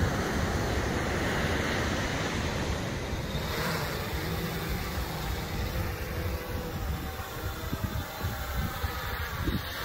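Quadcopter fishing drone (FD1) spinning up its propellers and lifting off with a bait line slung beneath, a steady hum of several tones that comes in about halfway through. Wind on the microphone and surf run under it.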